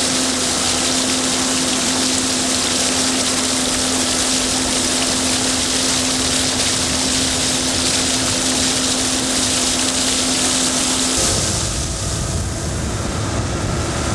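Motorboat engine running with a loud steady hiss of water and wind, carrying a steady hum. About eleven seconds in the hum stops and the sound turns to a lower, rougher rumble.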